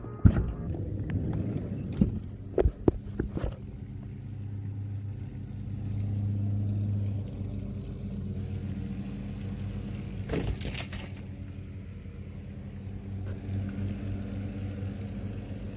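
A steady low engine-like hum, as of a motor vehicle running, with sharp clicks and rattles in the first few seconds and a short hissing burst about ten seconds in.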